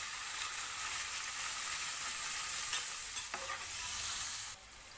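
Paneer cubes sizzling as they shallow-fry in hot oil in a steel pan, stirred with a spatula, with a single knock about three seconds in. About four and a half seconds in the sizzle drops suddenly to a quieter hiss.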